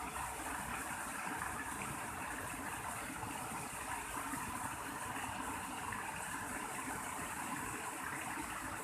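Steady rush of flowing water from a small stream, with no distinct splashes or knocks.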